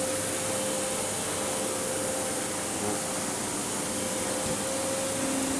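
Steady hiss and hum of machine-shop machinery running, with one constant tone held over the noise.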